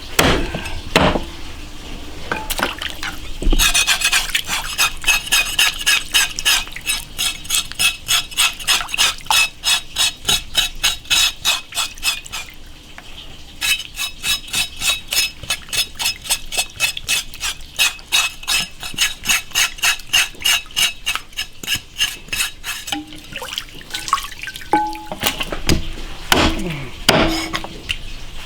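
A metal blade scraping or sawing in quick, even strokes, about four a second, in two long runs with a short break between them while lamb is being butchered; a few separate knocks follow near the end.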